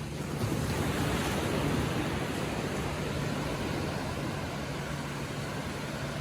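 Ocean wave breaking and washing up the beach: the rush of surf swells about half a second in and slowly fades, over a steady low hum.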